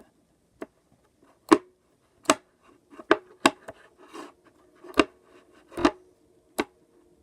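A series of about nine sharp taps or clicks at an uneven pace, over a faint steady hum.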